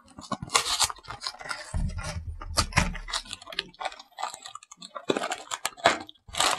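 A paperboard Pocky snack box being opened by hand: irregular clicks, scrapes and rustles of cardboard as the tab is pulled and the flap torn open, with a low rumble of handling about two seconds in.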